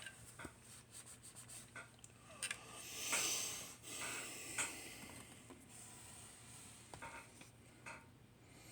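Hands handling a diecast model truck and trailer: light clicks and taps as the pieces are picked up and set down, with a rubbing, sliding sound about three seconds in.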